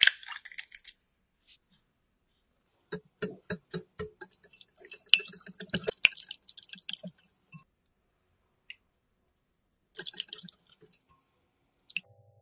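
An egg cracked and dropped into a glass bowl, then a wire whisk beating the eggs in the glass bowl: a run of quick clicks about three seconds in, then a few seconds of scraping whisking, and another short burst near the end.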